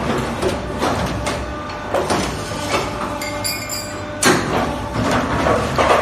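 Double J-hook making machine running: a steady motor hum with metallic clanks about every second as it forms the hooks, the loudest clank about four seconds in.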